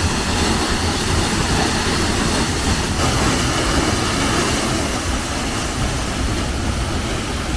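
A 38-metre waterfall pounding into its plunge pool, heard close up: a loud, steady rush of falling water with strong pressure.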